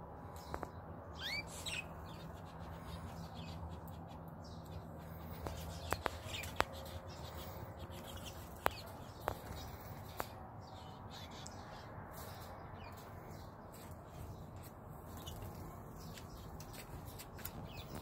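Canaries chirping, with short rising calls, the clearest about a second in and fainter ones scattered throughout. A few sharp clicks fall near the middle, over a steady low hum during the first third.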